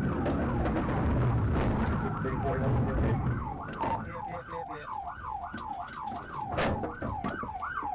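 Police patrol car siren yelping, its pitch swinging up and down about twice a second, over heavy engine and road rumble that eases about three seconds in. A brief loud knock comes about two-thirds through.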